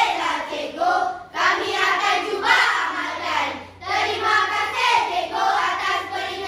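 A group of schoolchildren's voices in unison, reciting in a sing-song chant in a choral-speaking performance, with short breaks between phrases.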